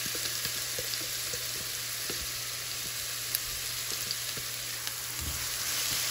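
A finely minced mix of onion, garlic, ginger and hot chili sizzling steadily in hot oil in a frying pan, with a few faint clicks.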